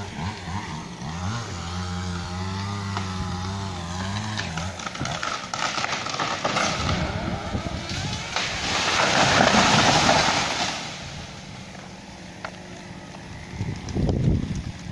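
A two-stroke chainsaw idling steadily, which stops a little under five seconds in. A loud rushing, crackling noise then swells, peaks, and fades over about six seconds, and a shorter loud burst follows near the end.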